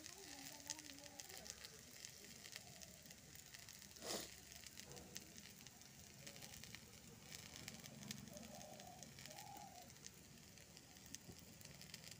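Faint crackling and sizzling of freshly fried vegetables in a hot kadai, with a single thump about four seconds in.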